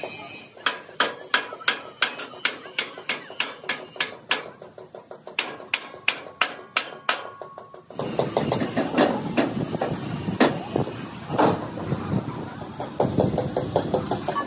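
Metalworking yard hammering: sharp metal strikes on steel, about two to three a second, then after a sudden change about eight seconds in, a louder, busier clatter of metal knocks.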